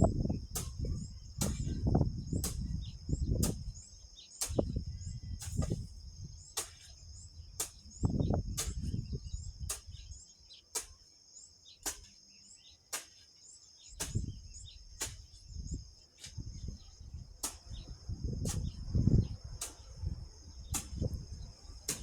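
Crickets or similar insects trilling in a high, steady tone, with regular ticks about twice a second, over irregular gusts of wind buffeting the microphone.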